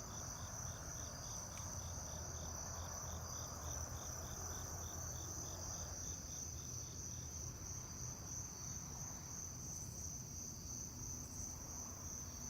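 Insects chirring: a steady high-pitched trill, with a second insect chirping about three times a second that stops about seven seconds in.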